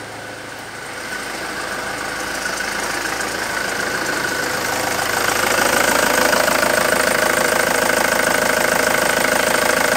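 Ford Transit 2.0 Duratorq DI four-cylinder turbodiesel idling with a steady diesel clatter, growing louder over the first five seconds and then holding even.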